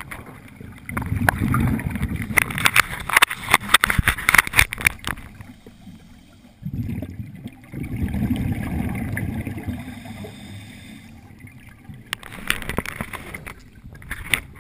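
Scuba diver breathing through a regulator underwater. Two long exhalations send out bubbles as a low rumble with crackling pops, quieter pauses come between them, and a shorter burst of bubbles follows near the end.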